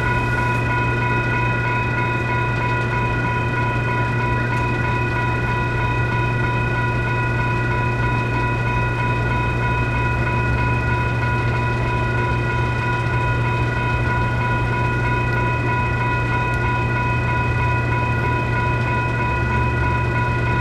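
Electronic railroad crossing bell ringing steadily at an activated grade crossing with the gates down. A steady low rumble runs underneath.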